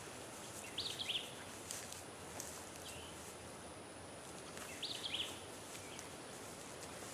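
A bird calling twice, about a second in and again about five seconds in, with fainter chirps between, over steady outdoor background hiss.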